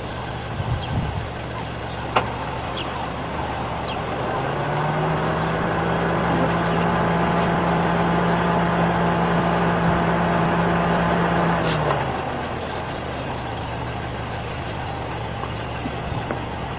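A motor vehicle's engine running with a steady hum from about four seconds in until about twelve seconds, over an insect chirping about twice a second.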